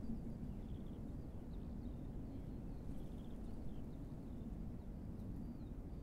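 Strong wind blowing across the microphone, a steady low rumble with small gusts. Faint high bird chirps and short trills come through it now and then.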